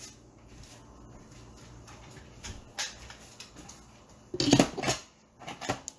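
Instant Pot lid being set onto the pot and closed: a couple of light clicks, then a louder clatter of the lid seating on the rim about four seconds in, followed by a few more clicks.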